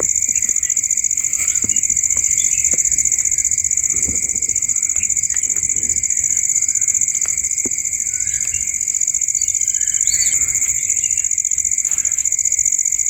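Steady, high-pitched insect chorus trilling without a break, with a few faint short chirps and clicks over it.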